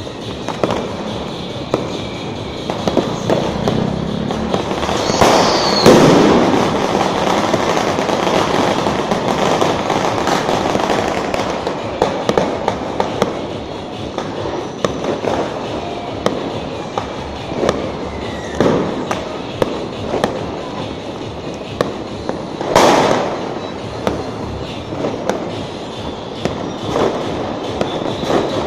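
New Year firecrackers and fireworks going off in a street: a steady rattle of small pops, with two much louder blasts, about six seconds in and about twenty-three seconds in.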